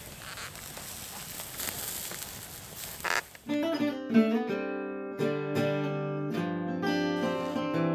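A campfire crackling and hissing, then, about three and a half seconds in, strummed acoustic guitar theme music starts and carries on.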